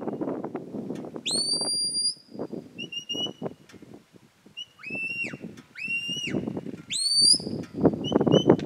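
A sheepdog handler gives a series of shrill shepherd's-whistle commands to a Border Collie working sheep. There are two long notes that sweep upward and then hold, with shorter flat notes and quick pips between them. An uneven low rushing noise runs underneath.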